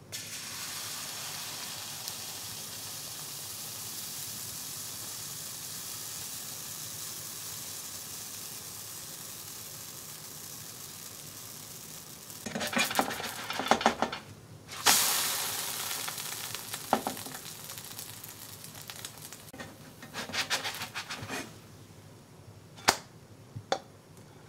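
Pancake batter sizzling as it is poured into an oiled frying pan, the sizzle slowly fading as it cooks. About halfway through a spatula scrapes under the pancake and turns it, bringing a fresh burst of sizzling that dies away. More scraping and two sharp clicks come near the end.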